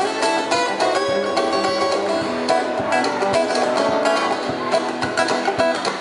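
Two acoustic guitars strummed together, playing a song.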